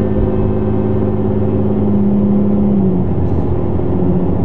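Supercharged 1GR-FE V6 in a 2008 Toyota Hilux pulling under steady load, heard from inside the cab as a loud, steady drone. The tone eases off about three seconds in, then returns a little lower.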